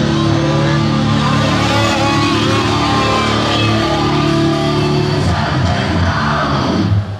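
Loud rock music with electric guitar, cutting off near the end.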